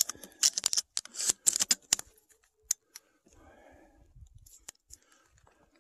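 Footsteps crunching in snow: dense crisp crunches in the first two seconds, then a few scattered clicks.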